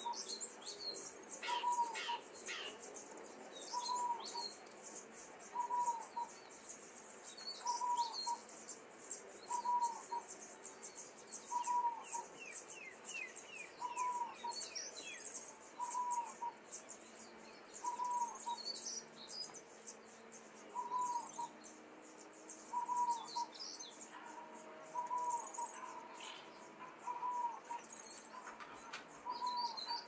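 Young common starlings calling from a nest box: a continuous high, scratchy chatter, with a short note repeated about every two seconds and a few quick falling chirps.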